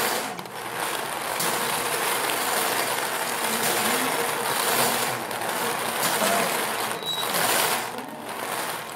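Plastic bingo balls tumbling and clattering inside a turning wire bingo cage, a dense, continuous rattle.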